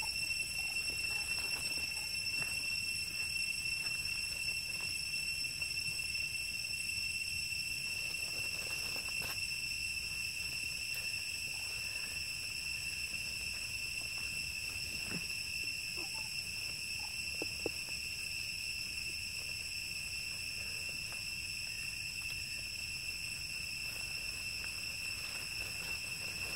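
Steady high-pitched drone of insects, several even tones held without a break, over a low rumble. A few faint short chirps come through about halfway.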